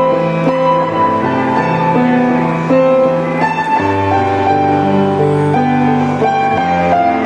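Slow instrumental background music with long held notes over a bass line that steps lower about four seconds in.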